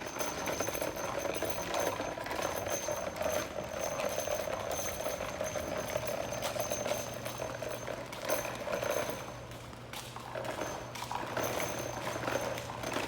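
Small electric motor of a child's ride-on toy car whining steadily as it drives, with a thin high whine that comes and goes and a rattle of small clicks; a lower hum joins about halfway through.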